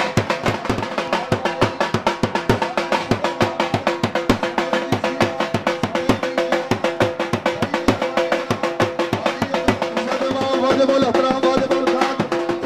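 Dhol drum beaten in a fast, steady rhythm of about five strokes a second, over a steady pitched tone. Near the end the drumming softens.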